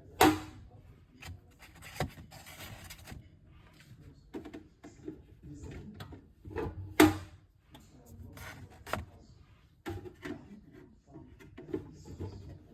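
Egg-crate sections and eggs being handled in a refrigerator: scattered sharp knocks and taps, with rubbing and rustling between them, the loudest knocks about a quarter second in and about seven seconds in.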